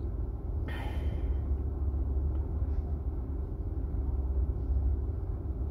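Steady low background rumble, with a brief hiss about a second in.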